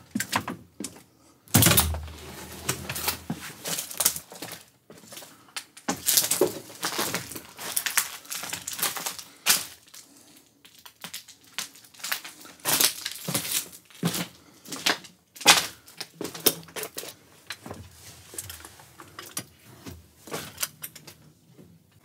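Footsteps crunching and cracking over broken panels, boards and rubble on the floor of a derelict railway carriage, irregular steps with debris shifting and snapping underfoot. The heaviest step lands about a second and a half in.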